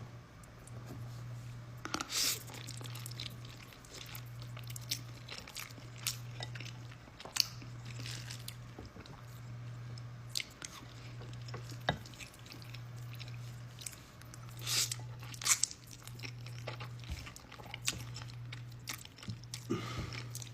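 Close-up eating sounds of a person eating spicy instant noodles and soft-boiled eggs: chewing and biting, with scattered small clicks and a few louder short sounds about two seconds in and about fifteen seconds in, over a low steady hum.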